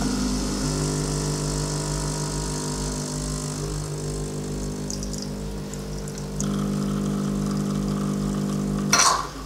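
Vibratory Ulka pump of a Ferratti Ferro FCM 3605 espresso machine buzzing steadily while it pulls a programmed 25-second espresso shot. It cuts off about nine seconds in with a brief loud burst as the shot ends.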